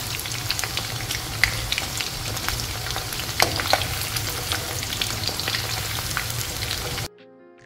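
Batter-coated chicken pieces deep-frying in hot sunflower oil in a wok: a steady sizzle full of small pops and clicks, with a steel spoon turning the pieces in the oil. The sizzle cuts off suddenly near the end and soft music begins.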